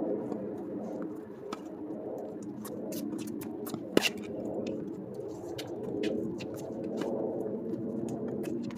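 Tennis ball struck by a racket during a doubles rally, one sharp loud hit with a short ring about four seconds in. Fainter clicks come from other hits, bounces and shoes on the hard court, over a steady low background noise.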